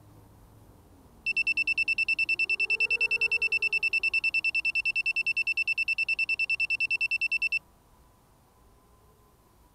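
A quadcopter's piezo buzzer beeping in a fast, even series of about eight high beeps a second, starting about a second in and stopping suddenly some six seconds later. It is the alarm of a downed drone lying in the grass after losing signal.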